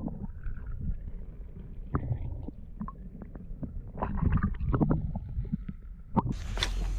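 Muffled underwater water noise, a low rumble with scattered knocks and gurgles, as a smallmouth bass is let go by hand and swims off; there is a louder flurry of churning about four seconds in. Just after six seconds a sharp click comes, and the sound suddenly opens into a brighter, open-air hiss.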